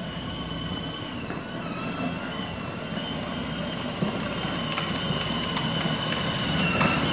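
Electric drive motors and gearboxes of a kids' ride-on Power Wheels Jeep Wrangler whining steadily as it drives, growing gradually louder, with a few light clicks in the second half.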